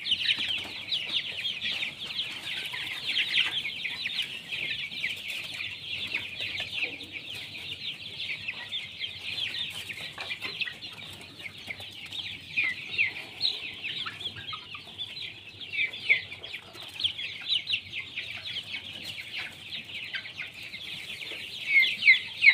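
A flock of young desi chickens cheeping continuously: many overlapping short, high, falling chirps, with a few louder calls near the end.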